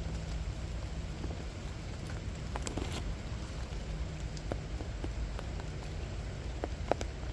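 Steady rain falling, with a few sharp single drops ticking close by, the clearest about halfway through and just before the end, over a low rumble.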